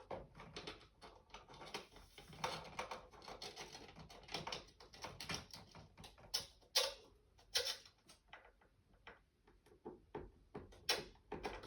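Light scratching and clicking of a tape measure and pen being handled while measuring and marking a bracket position, with a few sharper clicks near the middle and end.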